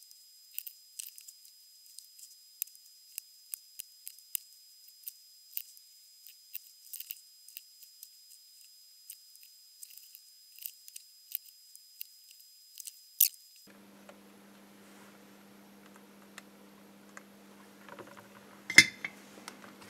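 Small scattered clicks and ticks of thin wire and a soldering iron being handled during soldering, over a thin steady high tone. About two-thirds of the way through this gives way to a low steady hum, with a couple of clicks near the end.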